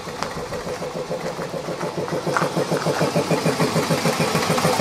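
Homemade single-cylinder air compressor pump, driven through a set of pulleys by a small 500 W electric motor, running and charging its tank with a steady rapid pulsing beat that grows louder.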